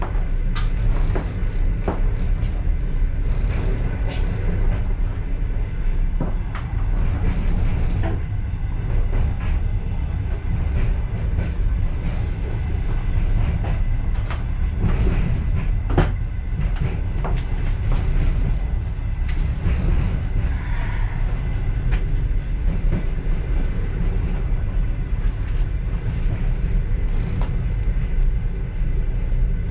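Passenger train running, heard inside its last car: a steady low rumble with scattered clicks and knocks from the wheels and car body.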